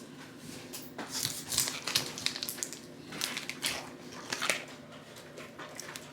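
Crinkling and tearing of a processed-cheese block's paper wrapper as it is handled and cut. It comes as an irregular run of sharp, scratchy crackles that starts about a second in and dies down near the end.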